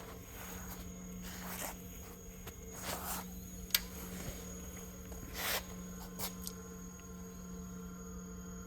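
A few short scraping sounds and one sharp click of metal parts being worked by hand, over a steady low hum.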